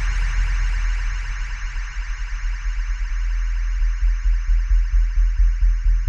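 Electronic dance music with heavy bass and a warbling synth line; a fast, regular bass pulse comes in strongly about four seconds in.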